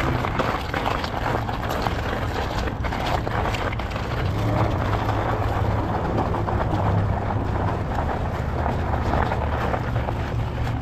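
Electric bike riding on a snowy street on its rear motor only: a steady rush of tyres and wind, with a low hum that grows stronger in the middle.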